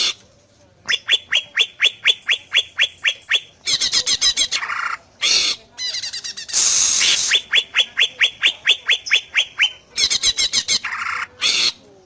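Cucak ijo (green leafbird) singing: two long runs of quick, repeated downward-sweeping whistles, about five a second, broken by harsher chattering and rasping notes.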